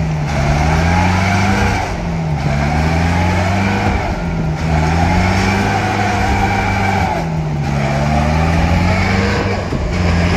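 Mahindra Major jeep's diesel engine revving hard under load while the jeep is stuck in deep mud and its wheels spin, being pushed from behind. The engine note sags and climbs again every two to three seconds as the driver works the throttle.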